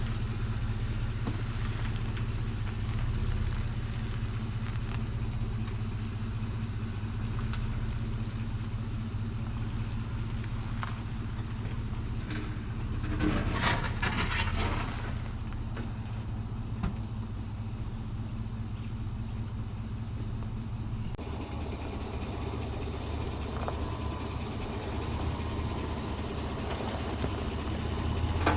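2004 Mitsubishi Challenger running with a steady low engine hum, a brief rushing noise about halfway through, and an abrupt change in the sound about two-thirds of the way in.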